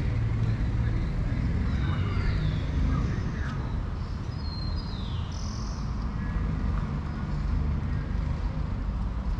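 Outdoor street ambience: a steady low rumble of passing traffic, with birds chirping in short falling whistles, two of them standing out about two and five seconds in.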